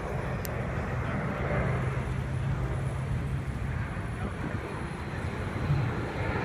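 Distant aircraft engine noise at an airshow display: a steady low hum under an even hiss.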